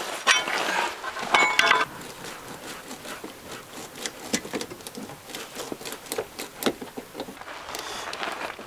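Hand tools clicking and scraping against an off-road tyre as a piece of steel lodged in the tread is worked loose, with a few short squeaks in the first two seconds.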